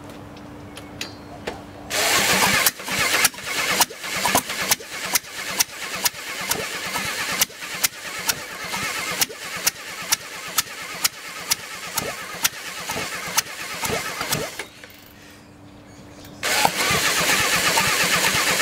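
A heavy corded power drill cranks a bare Volkswagen four-cylinder engine over by its crankshaft, with sharp cracks coming roughly twice a second. The cranking starts about two seconds in, stops for a moment a little before the end, then starts again.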